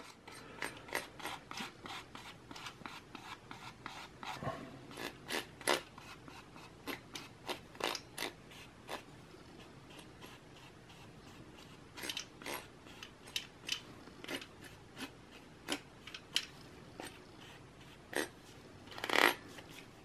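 A plastic bank card being scraped across the metal base of a CPU heatsink, spreading thermal paste evenly in many short strokes, one louder stroke near the end.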